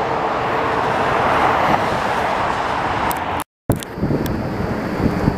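Jet airliner on landing approach passing low overhead: a loud, steady roar of jet engines. It cuts off abruptly about three and a half seconds in, followed by quieter background noise with a few sharp knocks.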